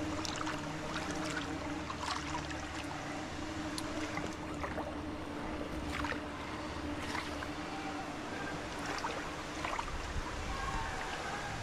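Water sloshing and splashing around a person wading through a river, with irregular small splashes over a steady rush of water. A steady low hum sits under it and stops near the end.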